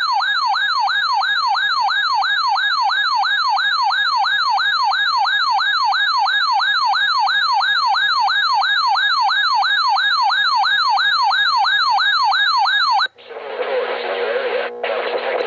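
Weather radio's electronic alert siren, a loud warbling tone sweeping up and down about three times a second, sounding for an Emergency Action Notification. It cuts off suddenly about 13 seconds in, and crackly, humming radio broadcast audio follows through the set's speaker.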